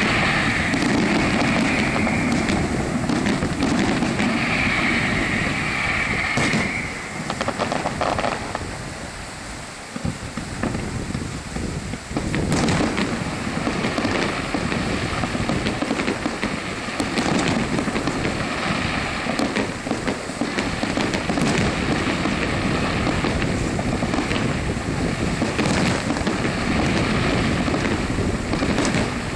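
Aerial firework shells bursting in a continuous barrage of bangs and crackle, easing off briefly about eight to twelve seconds in before building up again.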